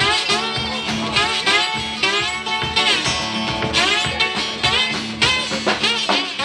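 Live blues played by an acoustic guitar with a drum kit.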